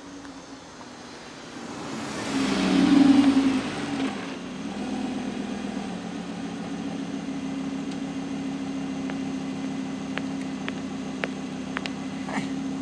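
Lamborghini Huracán's V10 pulling up close and settling into a steady idle, loudest about two to four seconds in as the car arrives. A few sharp clicks come near the end.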